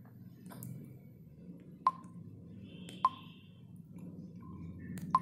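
Three sharp clicks, each with a brief ring, about a second or two apart, over a faint steady low hum.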